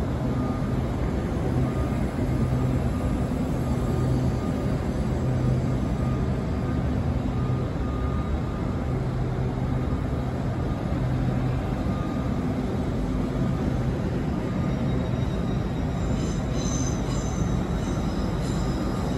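Hitachi Class 802 bi-mode train moving along the platform, a steady running noise with a low hum from its traction equipment. A faint high-pitched wheel squeal joins near the end.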